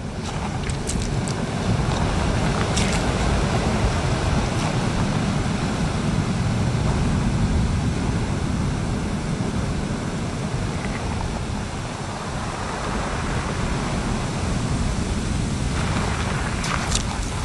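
Sea surf washing over a shingle beach, a steady rush with a heavy low rumble of wind on the microphone. A few brief clicks come about a second in and again near the end.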